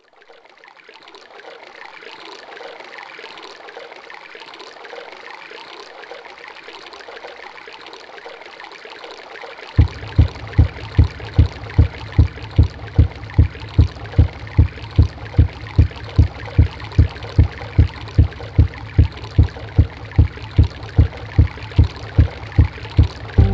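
Intro of an instrumental track: a flowing-water hiss fades in, then a steady low thump joins about ten seconds in, repeating about three times a second.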